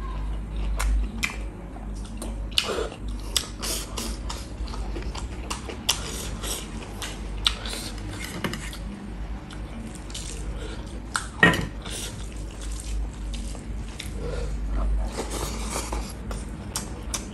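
Close-miked mukbang eating: wet chewing and lip-smacking of a mouthful of rice and beef curry, a quick run of clicky mouth sounds, with one louder smack about eleven seconds in.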